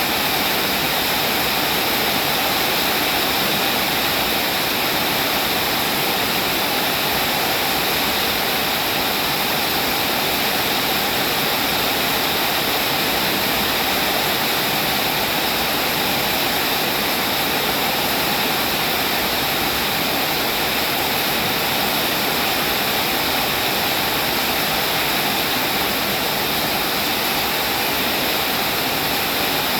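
Steady rain falling, a dense even hiss with no separate drops standing out and no change in strength.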